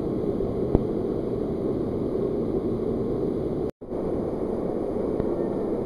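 Steady rush of a waterfall cascading down a narrow rock canyon, with a single sharp click under a second in. The sound drops out for an instant a little before four seconds in.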